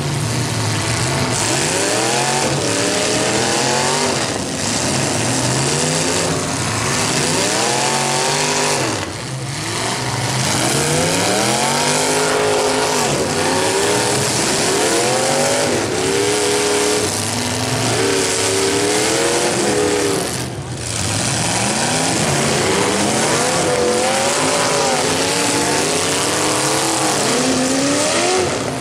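Several demolition derby cars' engines revving hard over and over, their pitches rising and falling and overlapping, over a steady noisy rush.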